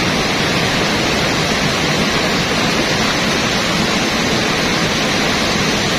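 River rapids rushing: a steady, loud wash of fast water over rocks, unchanging throughout.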